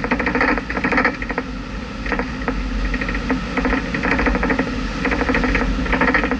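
A car running along a road, heard from inside the cabin: a steady engine and road hum under a fast rattling clatter that swells and fades every second or two.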